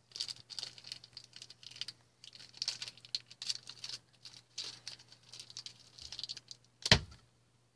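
Small plastic blind-bag wrapper of a Grossery Gang collectible figure crinkling and rustling as it is worked open by hand. A sharp knock comes near the end, and then the sound cuts off suddenly.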